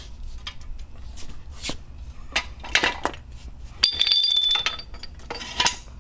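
Metal tools clinking and clanking as they are handled, with one piece of metal ringing briefly about four seconds in.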